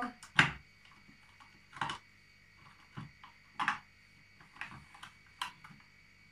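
Light clicks and knocks of small plastic toys, animal figurines and plastic toy house pieces, being handled and set down, about seven at irregular spacing, the first the loudest.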